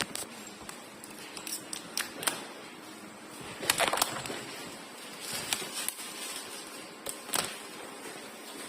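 Irregular sharp clicks and knocks, a few at a time, with a denser cluster about four seconds in, over a faint steady background hiss.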